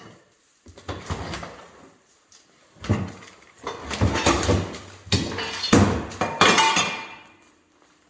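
Metal parts of a skid steer's seat and seat mounting knocking and scraping as they are handled, in four rough bursts over about six seconds.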